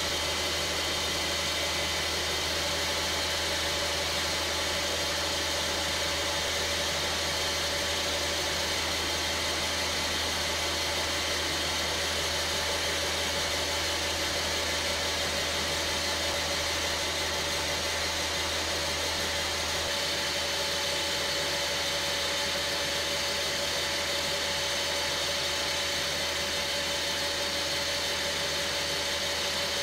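Small metal lathe running steadily, a constant hum with a high whine, as a carbide insert tool turns a brass rod down into a bolt.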